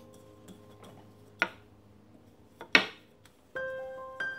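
Wooden rolling pin knocking twice on a marble countertop while dough is rolled out, two sharp clacks about a second and a half apart. Soft piano music comes in near the end.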